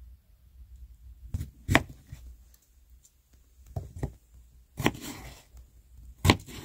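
A kitchen knife slicing through peeled raw potatoes and striking a wooden cutting board: about six sharp, irregular chopping knocks.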